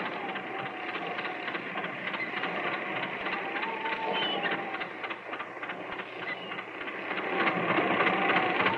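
Radio receiver static used as a sound effect: a crackling hiss with a thin wavering whistle that rises and falls, while a station is being called and not yet answered.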